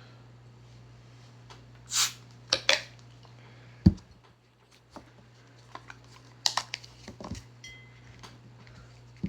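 Objects being handled at close range: a short scrape about two seconds in, two sharp clicks, a dull thud near four seconds, then another cluster of clicks and knocks, over a steady low hum.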